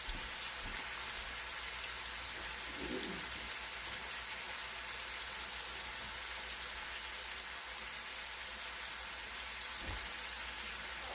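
Pink salmon fillets pan-frying in canola oil and green beans sautéing on high heat in stainless skillets: a steady, even sizzle.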